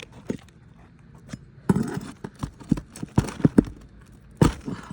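Roof shingles being worked loose from their nails: a series of sharp knocks and clicks with some scraping, about seven knocks clustered from roughly a second and a half in to near the end.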